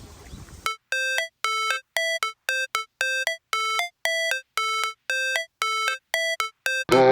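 Music intro: a short electronic synth beep repeated about twice a second, each a quick two-note figure with dead silence between, after a moment of faint background noise; near the end a full music track comes in.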